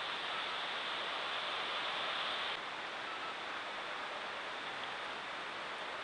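Steady hiss from a Browning trail camera's microphone recording a quiet night yard, with no animal calls or footsteps standing out. It is a little louder and brighter at first and drops slightly, abruptly, about two and a half seconds in.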